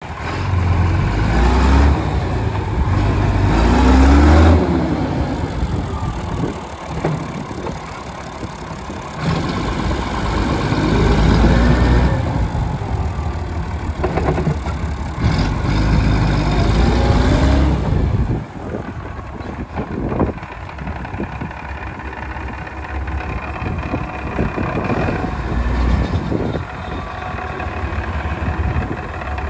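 1983 Massey Ferguson 2620 tractor's six-cylinder Perkins diesel engine being driven, its pitch rising and falling several times, then settling to a quieter, steady idle about two-thirds of the way through.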